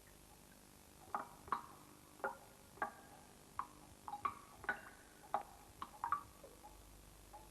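Rainwater dripping from a leaking roof: about a dozen irregular, short pitched plinks, starting about a second in and stopping near the end.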